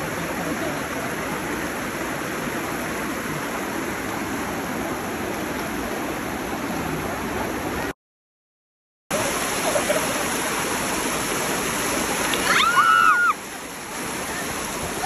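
River water rushing steadily over a line of rocks in a shallow stream. It breaks off for about a second midway, and near the end a short high-pitched cry rises over the water.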